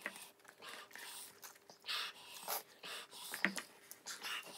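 People panting and breathing hard through the mouth while eating 2x spicy instant noodles, in short noisy bursts mixed with the slurping of noodles; the heavy breathing comes from the burn of the spice.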